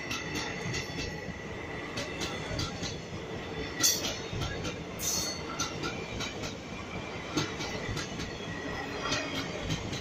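Indian Railways sleeper coaches rolling past, their wheels clattering and clicking over the rail joints. A thin steady squeal rides over the clatter for the first few seconds and fades about four seconds in, and two louder sharp noises come about four and five seconds in.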